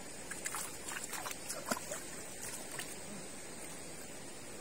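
A steady high-pitched drone of night insects, with a flurry of short light clicks and splashes from hands and feet working in shallow river water during the first three seconds.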